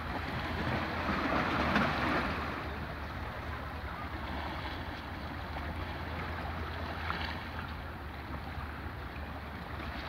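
Small sea waves lapping and washing against shoreline rocks, swelling about a second in and again briefly around seven seconds, over a steady low rumble.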